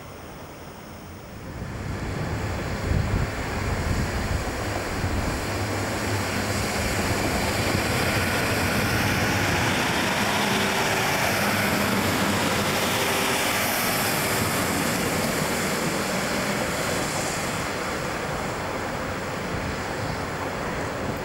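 Two-car British Rail Class 156 Super Sprinter diesel multiple unit running close past, its underfloor diesel engines and wheels on the rails. The sound grows loud about two seconds in, is loudest midway, and eases a little as the train draws away.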